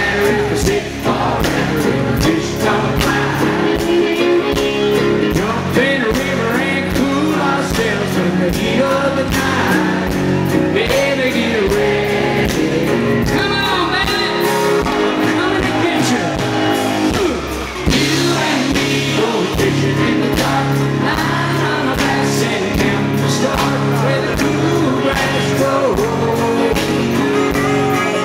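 A live band playing a country-rock song: a man sings lead over guitar, bass and a steady drum beat. The music dips briefly about two-thirds of the way through, then carries on.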